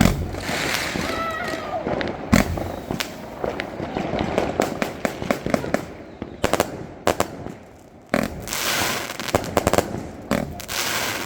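Firecrackers and fireworks going off in a rapid, irregular string of bangs and crackles, with one louder bang about two seconds in and a stretch of hissing about eight seconds in.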